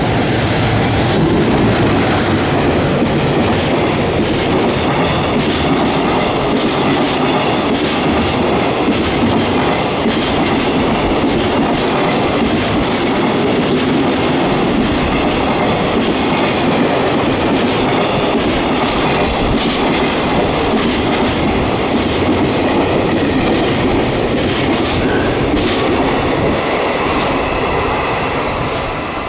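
Freight train's container wagons rolling past at speed through a station, a loud, steady rumble of wheels with a clickety-clack over the rail joints, dying away near the end.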